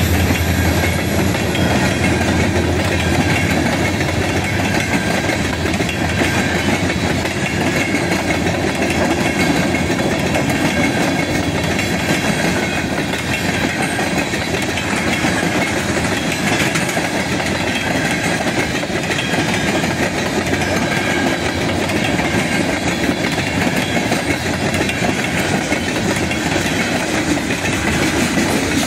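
Freight train of tank cars and open gondola cars rolling steadily past, steel wheels clacking over the rail joints.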